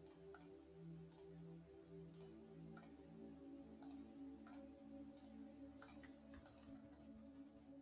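Faint computer mouse clicks, about ten at uneven intervals, over quiet background music with a soft repeating melody.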